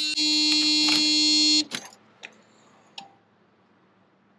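VW Golf Mk3's door-open warning buzzer sounding with one steady tone, with a short break just after the start and then cutting off suddenly about a second and a half in. A few light clicks follow.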